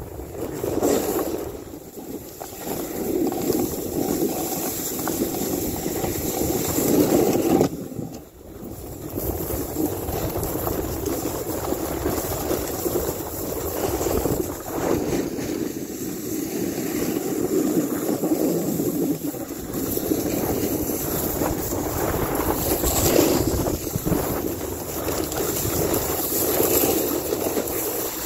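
Wind rushing over the microphone together with a snowboard's base hissing and scraping as it slides and carves through soft snow, with a brief lull about eight seconds in.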